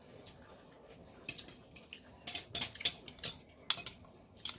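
Chopsticks and a porcelain spoon clinking and scraping against a ceramic bowl of noodle soup. It is a string of quick clinks that starts after about a second and is busiest in the second half.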